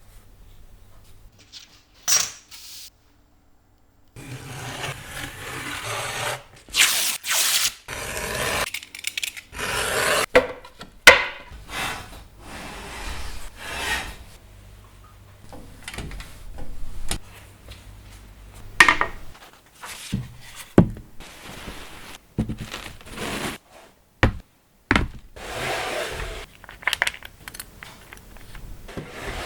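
Printmaking tools scraping, scratching and rubbing on plates and paper in a rapid run of short strokes of varying length, some sharp and loud. The sounds are cut together with abrupt stops and a brief dead silence about three seconds in.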